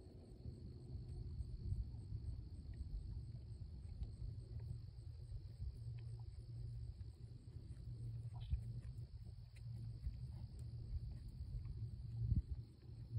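Crickets chirping steadily in the background, over a low rumble that is the loudest sound.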